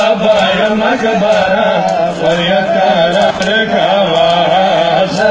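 Men chanting a noha, a Shia mourning lament, in a sung melody, with sharp slaps of hands beating on bare chests (matam) cutting through now and then.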